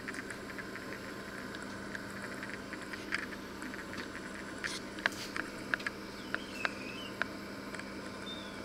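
Electric oven running with a steady hum, with scattered sharp clicks and ticks, most of them clustered in the middle of the stretch.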